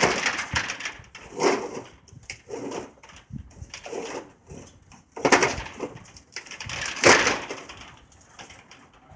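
A series of separate scraping and knocking noises, about six spread unevenly over several seconds, from hands-on work on garage door spring hardware.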